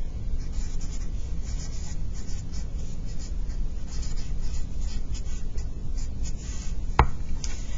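Felt-tip marker writing on paper, a run of short scratching strokes as words are lettered, over a steady low hum. There is a single sharp tap about seven seconds in.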